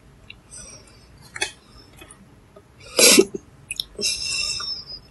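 A woman's single short cough about three seconds in, then a brief high-pitched breathy sound, with a few light clicks around them.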